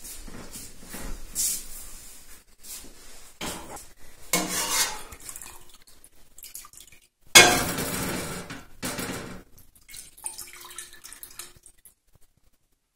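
Metal slotted spoon scraping and clinking against a pot while skimming the skin off cooling milk, with a louder clatter about seven seconds in.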